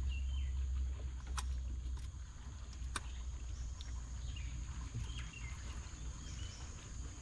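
Riverside outdoor ambience: a steady low rumble under a continuous high insect drone, with scattered short bird chirps and two sharp clicks a second and a half apart.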